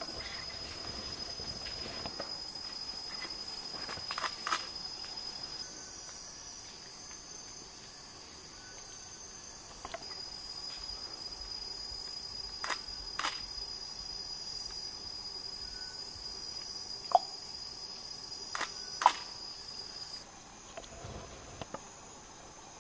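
Rainforest insects trilling in one steady high note that shifts in pitch a couple of times, with a few sharp snaps or clicks scattered through.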